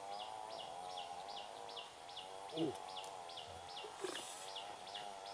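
Forest ambience: a bird repeats a short falling note about three times a second over a steady wavering drone. There is a brief low falling sound about two and a half seconds in.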